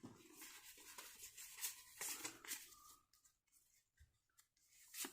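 Soft rustling and sliding of Pokémon trading cards being handled and flipped through, with small scrapes and clicks, busiest in the first three seconds and thinning out after.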